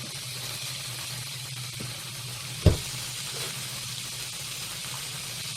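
Duck meat, mushrooms and freshly added garlic sizzling steadily as they fry in a pan, with a steady low hum underneath. A single sharp knock comes about two and a half seconds in.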